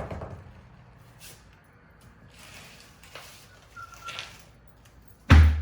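Low background sound with faint scattered noises, then near the end a deep, heavy bass beat of drum-driven music comes in.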